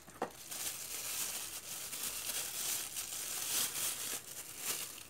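Thin clear plastic wrapping crinkling and rustling continuously as it is handled and pulled off a screwdriver, with many small crackles and clicks.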